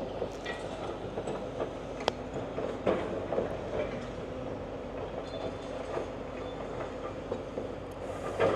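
Demolition excavator with a grab attachment working a rubble pile: its engine runs steadily while scattered sharp metallic clanks and knocks come from steel and concrete debris being sorted.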